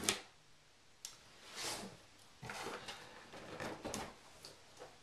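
Cardboard box being opened by hand: a sharp click of a flap coming free about a second in, then faint scraping and rustling of cardboard flaps and packing, with a few small clicks.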